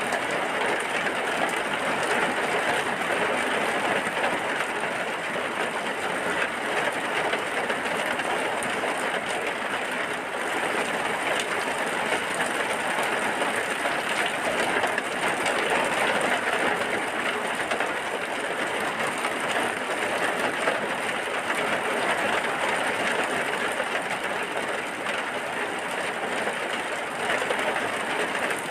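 Rain falling in a steady, even hiss with no let-up.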